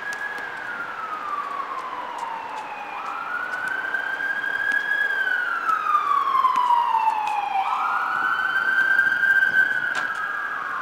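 Emergency vehicle siren on a slow wail: each cycle rises quickly, holds, then slides down over a couple of seconds, repeating about every four to five seconds. A second, higher siren wails out of step with it, and the sound grows louder until about nine seconds in, then eases off.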